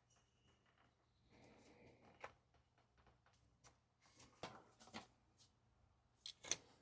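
Near silence, broken by a few faint clicks and taps of small parts being handled, the sharpest near the end.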